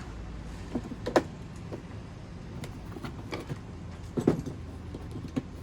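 Loose hardware (nails, screws) being handled and rattled about in a toolbox: a scattering of short light clicks and knocks at irregular intervals, over a low steady hum.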